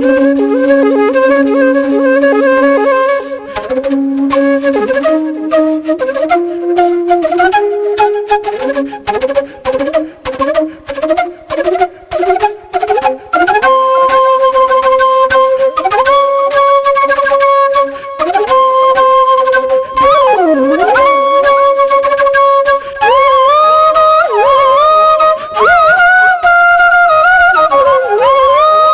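Background flute music: a single melodic line with pitch slides and ornaments. It opens on a held low note, climbs in a run of short, detached notes, and from about halfway settles into longer, higher notes with bends and trills.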